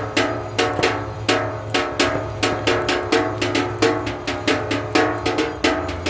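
A fast, steady rhythm of percussive strikes, about three to four a second, each ringing briefly, over a steady low hum.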